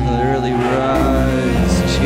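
Music: a droning noise-rock track with held low notes and a wavering, gliding higher line over them.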